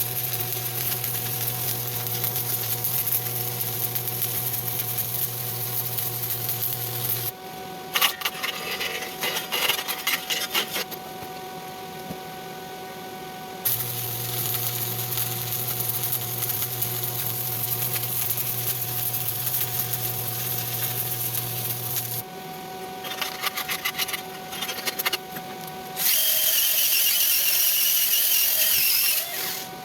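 Stick-welding arc sizzling in two long runs with a steady low hum underneath, separated by spells of rapid clicking and tapping. A louder, harsher metal noise comes near the end.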